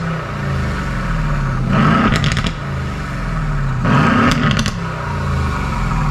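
Aston Martin V8 Vantage's twin-turbo V8 through a QuickSilver sport exhaust with secondary catalyst delete pipes, exhaust valves open in Sport Plus mode, revved twice at standstill. Each blip rises and falls quickly, with a burst of crackles on the overrun, and the engine idles in between.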